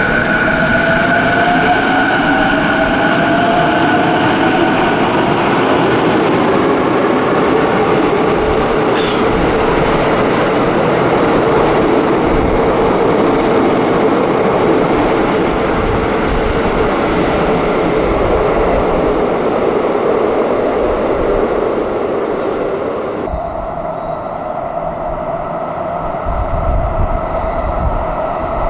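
Sotetsu 12000 series electric train pulling out and running past the platform: the traction motors' whine rises in pitch as it accelerates, over continuous wheel and car noise. About 23 seconds in, the noise drops off abruptly to a quieter steady hum.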